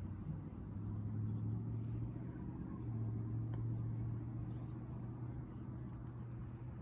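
A distant engine running steadily: a low, even hum that swells slightly for a few seconds, then eases.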